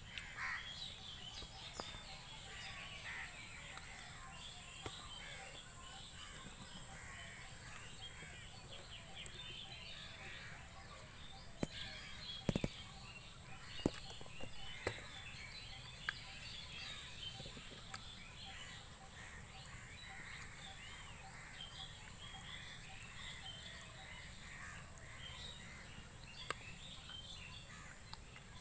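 Many birds chirping and calling on all sides, over a steady high hiss. A handful of sharp clicks and taps come in the middle.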